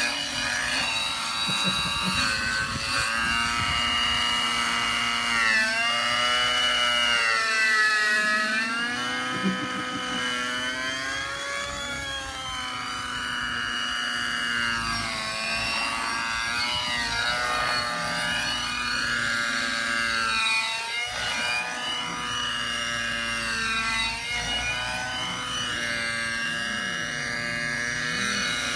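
Synergy N5C nitro RC helicopter's OS 55HZR engine and rotor running in flight, a steady high whine whose pitch swings up and down again and again as the model flies back and forth.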